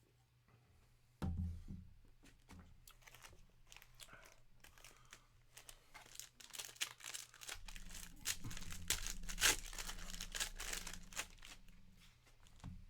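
Plastic wrapping on sealed trading-card product being torn and crinkled, a dense run of crackling that builds toward the end, with a thump about a second in.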